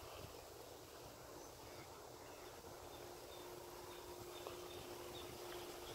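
Quiet outdoor background: a faint steady hum that comes in about a second and a half in, with faint, evenly spaced high chirps.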